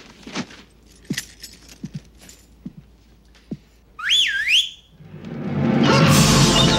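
Scattered light knocks and clicks, then about four seconds in a person gives a short, loud whistle that swoops up and down, a call for hidden pets to come out. Music swells in right after and is loud near the end.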